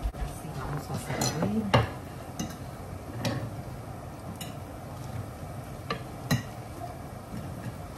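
A metal fork clinking and tapping against ceramic plates as fried picarones are lifted and moved: a string of separate sharp taps, the loudest about two seconds in and another about six seconds in.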